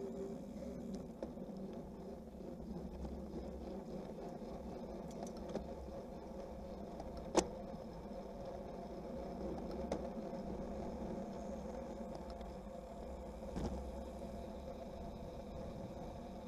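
Steady rolling noise and wind from a racing bicycle riding fast on asphalt in a bunch, heard through a camera mounted on the bike. A single sharp click about seven seconds in, with fainter knocks near ten and thirteen seconds.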